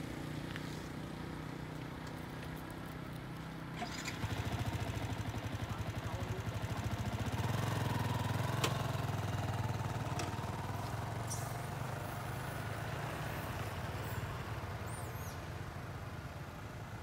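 A motorcycle engine running, a low steady hum that swells about four seconds in and slowly fades toward the end, with a few faint clicks.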